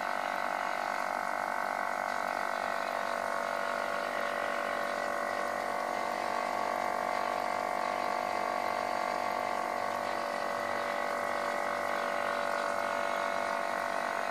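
Small beer pump running steadily, circulating beer through an inline carbonation stone: an even hum made of several fixed tones that does not change.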